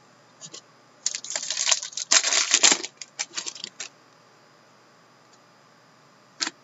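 Trading cards being handled and slid against each other: a flurry of quick clicks and rustles for about three seconds, then a single click near the end.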